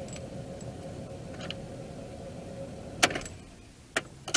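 A car running at a standstill, heard from inside, as a steady hum. About three seconds in there is a sharp click and the running sound dies away, as when the engine is switched off. A couple of sharp clicks follow near the end.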